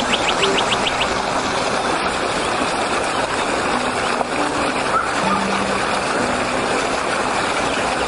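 Fast-flowing stream rushing over rocks and through small rapids, a steady, even rush of water. A quick run of short, high rising chirps sounds in the first second.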